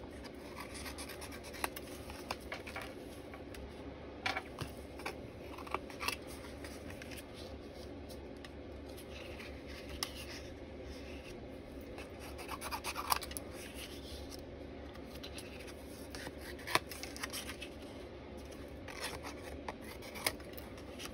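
Small scissors snipping the corner off a watercolour card panel: a few faint, scattered snips, with card and paper being handled and rubbed between them.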